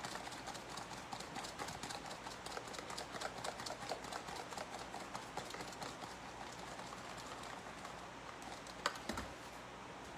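Food sizzling in a hot pan, with a dense, rapid crackle that eases a little in the second half. A single sharp click comes near the end.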